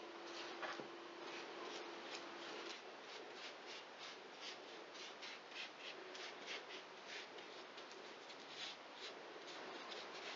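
A spoon spreading moist poppy seed filling over rolled-out dough: a faint, irregular series of short scraping strokes, about three a second.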